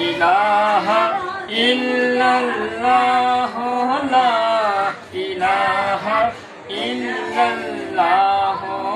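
Several voices, children's among them, singing together without instruments, in sung phrases broken by short pauses.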